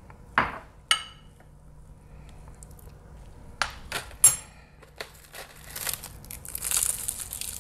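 A metal spoon clinking against a ceramic bowl several times, some strikes ringing briefly, followed from about five seconds in by the crinkling of a plastic packet of seaweed being handled.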